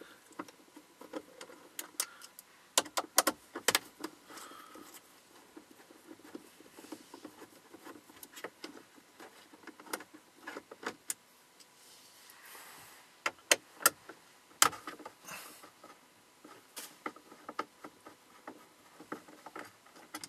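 Hand screwdriver backing out the factory radio's mounting screws in a car dashboard: scattered sharp clicks and small clatter, bunched about three seconds in and again around thirteen to fifteen seconds in.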